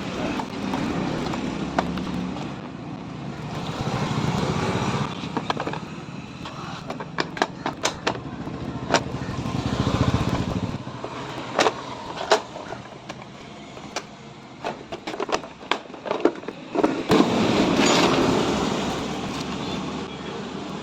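Sharp clicks and knocks of hand tools and plastic parts as a new air filter is fitted into a Honda Dio scooter's air filter box, many in quick runs through the middle, over a noisy background that swells and fades three times.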